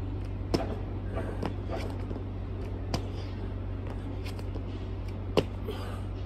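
Burpees on an asphalt court: a sharp slap or thud on the pavement about every two and a half seconds, three in all, over a steady low hum.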